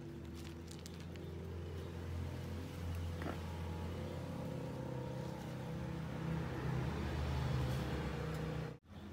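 A motor vehicle's engine running nearby with a steady low hum, growing louder over several seconds, then breaking off abruptly near the end.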